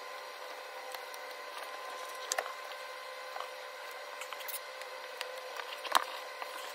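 Painter's tape being handled and pressed onto a car's tailgate: faint crinkles and a few sharp little clicks, the clearest about two and a half and six seconds in, over a steady background hum.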